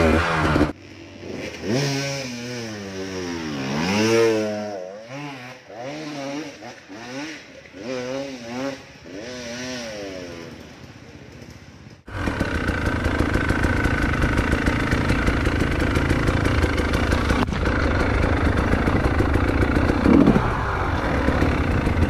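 Trail motorcycle engines revving up and down over and over, the throttle opened and closed repeatedly. About halfway through, the sound switches abruptly to a motorcycle engine running steadily and louder, close up.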